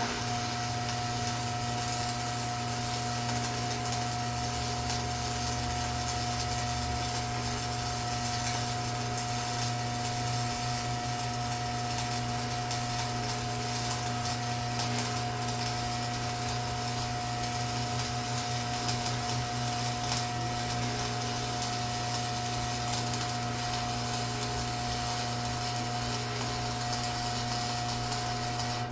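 Stick-welding arc from an old 115-volt AC/DC welding machine set to 50 amps, crackling steadily over a steady electrical hum.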